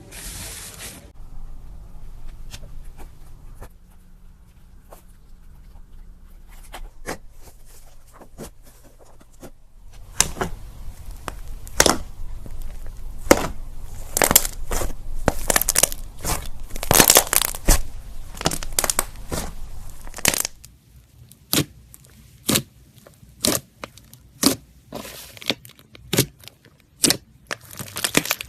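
Slime being worked by hand, giving sticky crackles and popping snaps: scattered at first, dense for about ten seconds in the middle, then single pops roughly once a second near the end.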